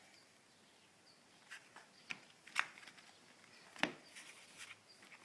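Yu-Gi-Oh trading cards being handled and laid down on a table: a handful of light taps and clicks, the sharpest about two and a half and four seconds in.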